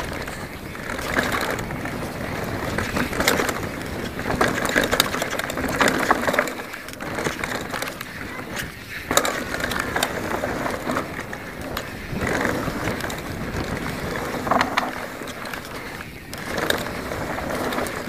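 Specialized Enduro mountain bike descending a dirt trail at speed: tyres rolling on dirt and the bike rattling, with irregular knocks and clatters over the bumps.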